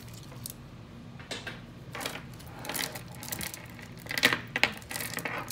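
Stone bead jewelry clicking and clattering as it is picked up and handled, a scatter of sharp clicks with the loudest cluster about four seconds in.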